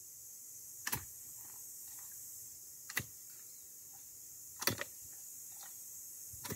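Clamshell post-hole digger being driven into the soil: three sharp strikes about two seconds apart, then a couple of fainter ones near the end, as the blades cut into the ground to dig a planting hole.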